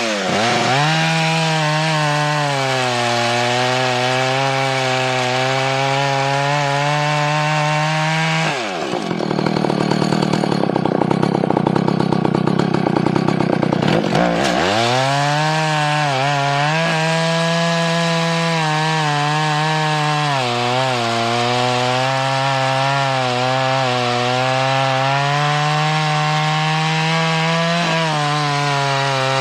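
Vintage Husqvarna two-stroke chainsaw with a 28-inch Sugihara bar and .404 chain, running at high revs while cutting through a log. About eight seconds in the engine pitch drops and a louder, rougher stretch of about six seconds follows, then the saw climbs back to its steady high pitch for the rest of the cut.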